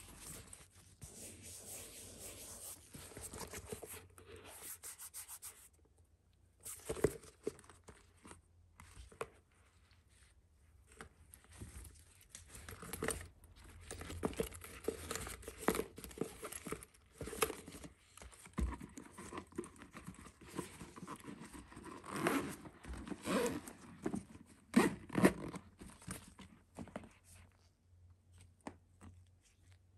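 Gloved hands handling a zip-top cylinder bag: a long zipper pull in the first few seconds, then rubbing of the bag's leather-look surface and strap, broken by scattered clicks and knocks from the buckle and metal hardware.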